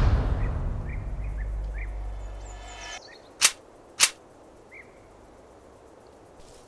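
A loud boom at the start dies away over a couple of seconds above a low steady music drone that cuts off about three seconds in. Then two sharp pistol shots ring out about half a second apart, with birds chirping.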